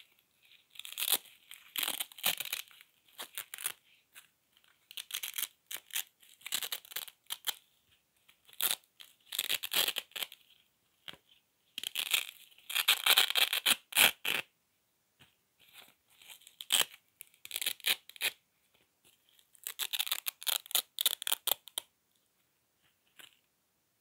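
Hook-and-loop (Velcro) strips being ripped apart in about six raspy bouts, each a second or two long with short pauses between, stopping shortly before the end.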